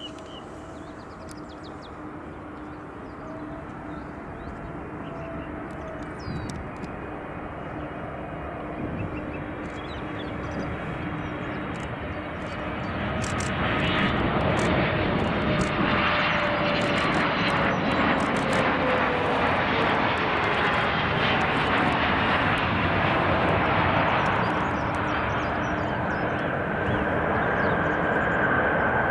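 Boeing 777 freighter with GE90 turbofans on final approach and landing: a jet engine roar that grows steadily louder over the first half and then holds. Under it runs a steady hum, and whining tones slide slowly down in pitch as the aircraft passes.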